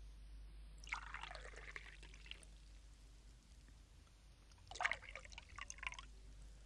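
Sparkling wine poured from a bottle into two champagne flutes, one after the other: two fizzing pours of about a second and a half each, the second starting about three seconds after the first ends.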